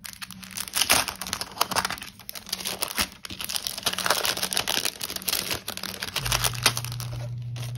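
Clear cellophane sticker sleeves crinkling and crackling as they are handled and opened. A low steady hum starts about six seconds in.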